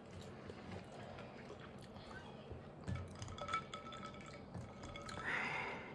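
Faint dripping of milk with a few small clinks, and a brief soft noise near the end.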